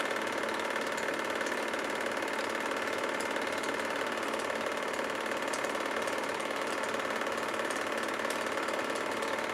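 8 mm home-movie film projector running: a steady mechanical whir that holds unchanged, with faint scattered ticks.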